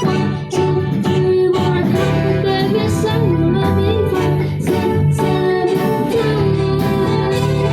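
Live band playing a soft pop song with guitar and a wavering vocal melody line.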